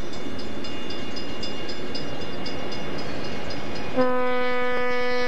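Union Pacific diesel locomotive approaching with a steady engine rumble. About four seconds in, its air horn starts suddenly and holds one loud, steady blast.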